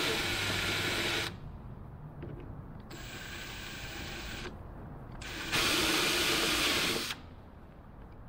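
Cordless power drill running in two short bursts, each about one and a half seconds, starting the remaining holes through the bolted-on hinge to mark their positions.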